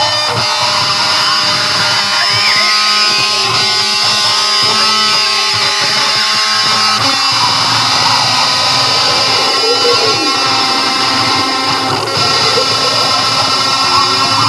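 Loud, chaotic music with guitar over a thick layer of sustained held tones.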